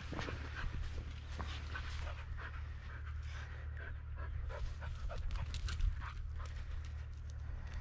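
Hunting dog panting close by, with footsteps on dry, stony ground and a steady low rumble.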